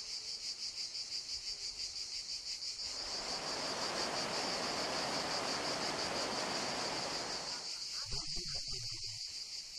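Insects chirping in a steady, fast-pulsing high trill. A soft rushing noise swells in about three seconds in and falls away before the eighth second.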